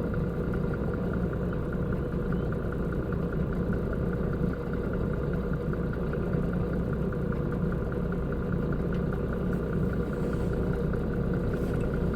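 Concrete mixer lorry's diesel engine running steadily at low revs.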